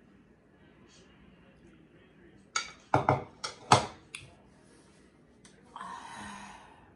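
Metal spoon clinking and scraping against a ceramic bowl, with a quick run of five or six sharp clinks about three to four seconds in. Near the end, a second of paper napkin rustling.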